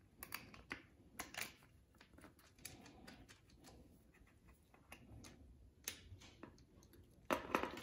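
Faint, scattered light clicks and taps of a bicycle mudguard and its small fittings being handled while it is fitted, with a louder cluster of clicks near the end.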